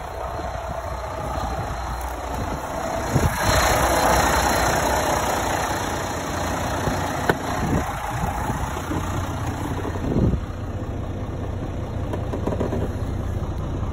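2013 MaxxForce 13 inline-six diesel truck engine idling steadily, with a few short thumps and knocks about 3, 7 and 10 seconds in.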